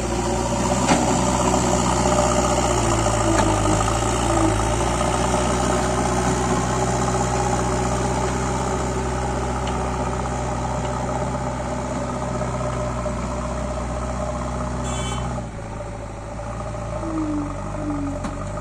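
Diesel engine of a JCB 3DX backhoe loader running steadily under work, easing to a lower, lighter running about three quarters of the way through.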